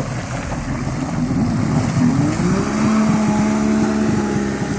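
Kawasaki STX 1100 jet ski's two-stroke three-cylinder engine pulling away. Its pitch rises about two seconds in, then holds at a steady drone.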